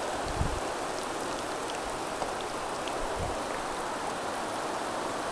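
Steady hiss of rain falling, mixed with the rush of river water.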